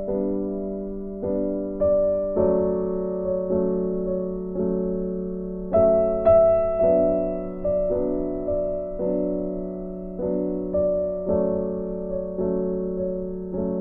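Background piano music: a slow melody of piano notes and chords, one struck about every second and fading away.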